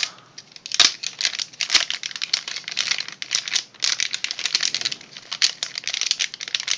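Plastic packaging crinkling and crackling as hands open and handle it, a small clear bag and then a silvery anti-static bag holding a circuit board, with sharper cracks about a second and two seconds in.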